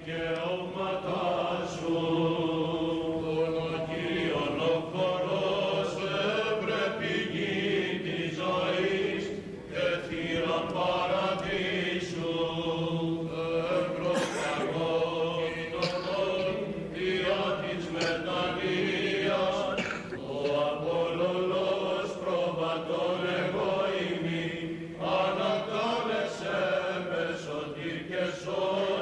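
Byzantine chant of the Greek Orthodox funeral service, sung continuously as a slow melody over a low held drone note, with the reverberation of a large church.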